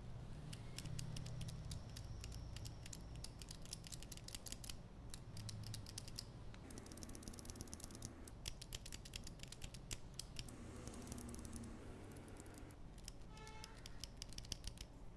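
Small plastic parts of a toy bird figure clicking and scraping as fingers handle them and snap them together: a quick, dense run of light clicks with short pauses, and a brief squeak near the end.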